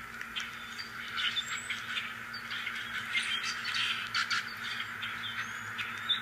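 Small birds chirping in quick, short calls, with a few brief whistles, over a faint steady hum.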